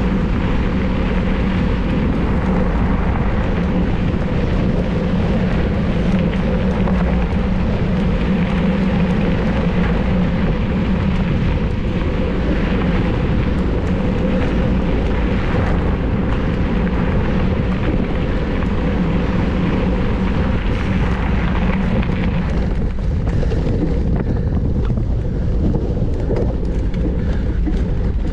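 Wind rushing over the camera microphone of a mountain bike ridden fast, over a steady rumble of the tyres rolling on the trail. The higher hiss thins out late on while the low rumble carries on.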